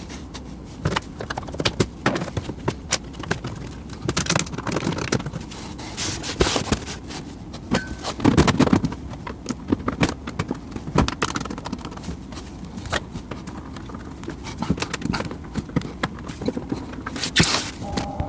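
Hands working on a PC case while fitting an intake fan into the front panel: irregular clicks, knocks and short scrapes of parts being handled.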